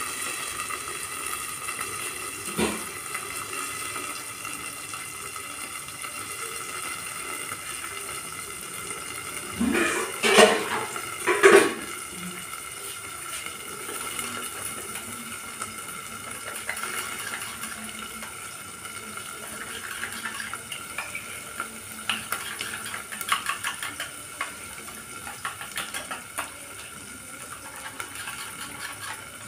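Onions and capsicum frying in oil under a steel lid in a kadhai, a steady muffled sizzle. A couple of loud metallic knocks and clatters come about ten to twelve seconds in.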